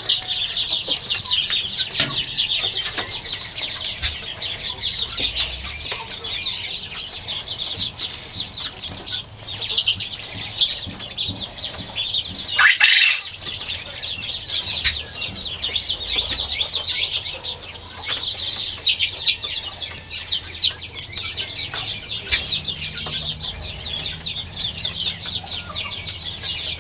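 A pen of about fifty quail calling: a dense, continuous chatter of short, high chirps, with one louder sound about halfway through.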